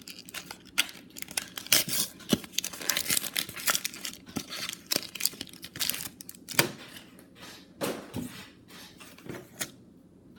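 Foil wrapper of a Pokémon trading card booster pack being torn open and crinkled by hand: a run of irregular crackles and rips that thins out near the end.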